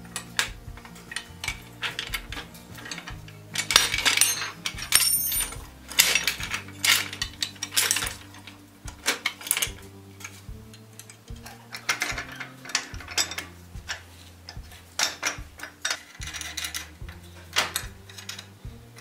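Irregular metal clinks and clanks as iron wagon brake fittings and a C-clamp are handled and set against the wooden frame, thickest in the first half, under background music with a bass line.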